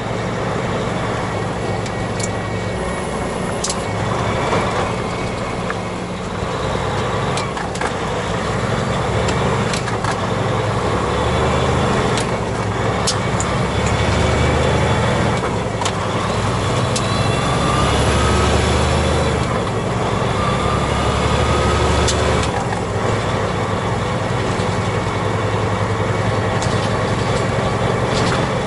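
Inside the cab of a semi-truck driving through city traffic: a steady low diesel engine drone with road noise, swelling and easing as the truck speeds up and slows. Occasional short sharp clicks sound over it.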